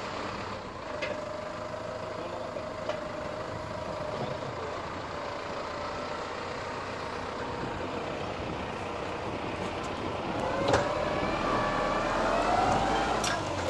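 Case IH JX110 tractor's diesel engine running as the front loader digs its bucket into the soil. About ten seconds in it gets louder, with a whine rising in pitch and a few sharp knocks.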